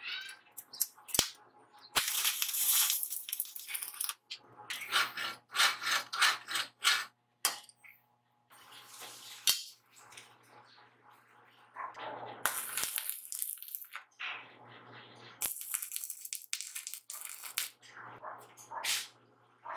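Stick welding arc crackling and sizzling in several short runs of one to three seconds, with the welder's steady low hum under each run, as a rod is welded onto a steel tube frame. A few sharp clicks of metal fall between the runs.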